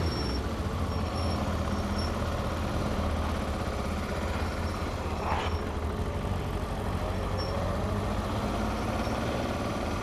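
Motorcycle engine running steadily at low speed, a low even hum, with a short rising sound about five seconds in.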